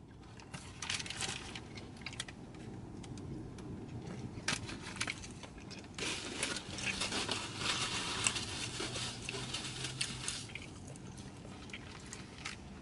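McDonald's paper food packaging rustling and crinkling as it is handled, with scattered small clicks and crackles, busiest from about six to ten seconds in.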